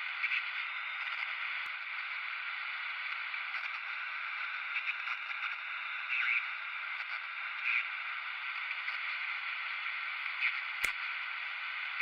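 Steady, thin radio-like static hiss with no low end. A faint click comes about two seconds in and a sharper click near the end.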